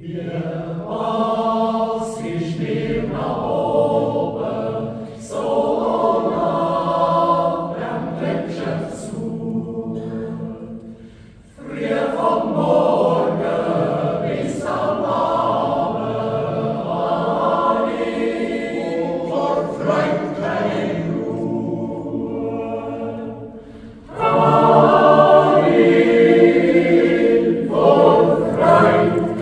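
Swiss yodel choir of men's and women's voices singing a cappella in long sustained phrases, with short breaks about 11 and 24 seconds in; the last phrase is the loudest.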